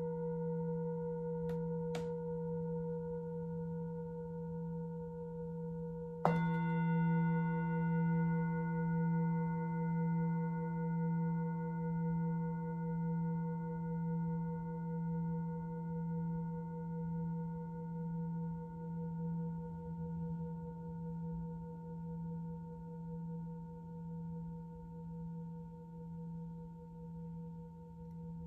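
Singing bowl ringing with a low, steady hum and higher overtones. It is struck again about six seconds in and rings on with a slow, even wobble as it fades. Two faint clicks come about a second and a half and two seconds in.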